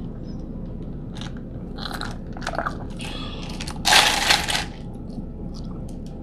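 Close-miked eating sounds: scattered small mouth clicks and smacks, with one louder, noisy scrape or rustle about four seconds in.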